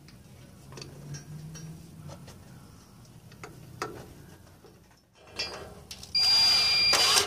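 Soft clicks of hand tools on metal, then about six seconds in a power drill on a long flexible socket extension runs for about a second with a steady high whine, driving in an exhaust manifold bolt.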